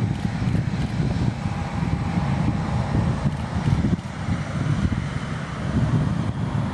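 Wind buffeting the microphone with a low, fluttering rumble over the steady whine of a taxiing Boeing 737-800's CFM56 jet engines.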